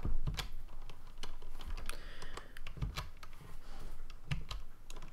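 Computer keyboard keys being pressed: a scattering of irregular, separate key clicks as shortcut keys are typed.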